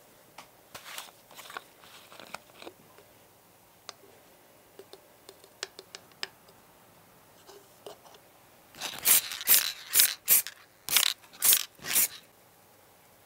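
Small hand-handling sounds of a plastic bottle, a metal mesh strainer and a plastic part: scattered light clicks and taps, then about seven loud, short, scratchy rasps in quick succession in the last third.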